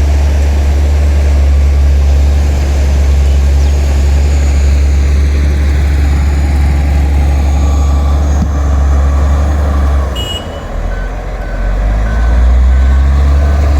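Heavy earthmoving machine's diesel engine running steadily, easing off for a couple of seconds about ten seconds in and then picking up again. In the last few seconds a reverse-warning beeper sounds repeatedly, about two to three beeps a second.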